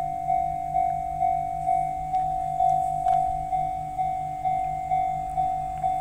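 Japanese railway level-crossing warning bell ringing, one bell tone struck over and over about twice a second, each strike fading before the next. It is warning that a train is approaching the crossing.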